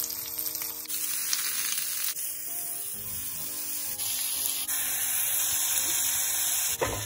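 Butter and cauliflower slices sizzling as they fry in a ridged grill pan, a steady hiss whose level shifts abruptly a few times. Soft background music runs underneath.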